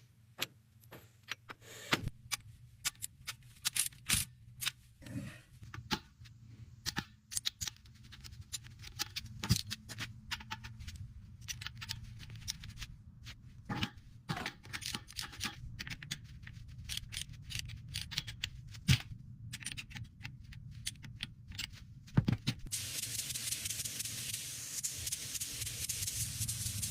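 Workshop hand work: irregular clicks, taps and light knocks of tools and parts over a steady low hum. About 23 seconds in, a steady spray hiss begins.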